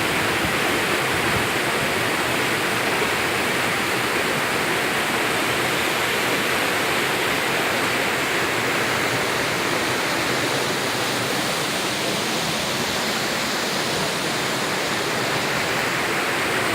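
Waterfall, a steady rush of falling water with heavy flow.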